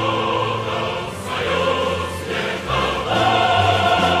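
Background music: a slow piece of long held chords over a low bass line.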